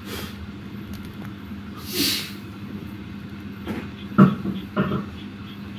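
Crackling and rustling on dry leaf litter, with a brief swish about two seconds in and a few sharp crackles around four and five seconds in, over a steady low hum.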